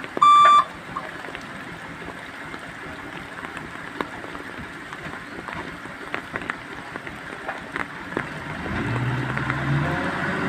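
Rain falling steadily, with scattered sharp drip ticks, after a truck's reversing beeper sounds a last beep in the first moment. Near the end the truck's diesel engine comes up and runs steadily.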